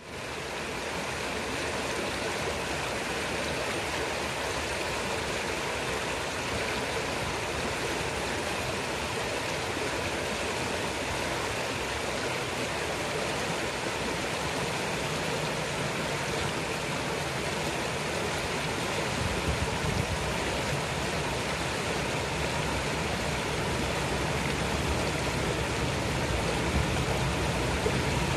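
A wide, shallow river rushing steadily over a stony riffle. A low rumble joins in a little past the middle.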